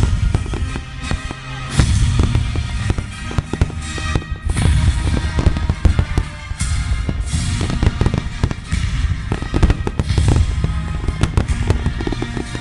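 Fireworks finale: a dense barrage of booming bursts and crackling reports, several a second with no let-up, with music playing along.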